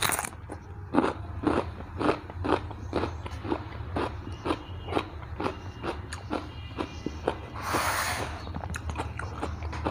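Close-miked chewing of crunchy raw vegetables, likely raw radish, with crisp crunches about two a second. About eight seconds in comes a louder, longer crackling crunch.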